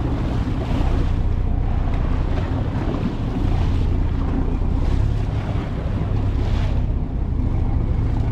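Motorboat under way: a steady low engine drone with water rushing past the hull and wind buffeting the microphone.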